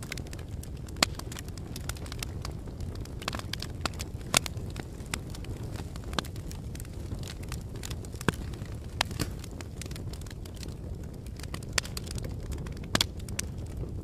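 Fire burning in a fireplace: a steady low rumble of flames with irregular crackles and a few sharp pops, the loudest about four seconds in.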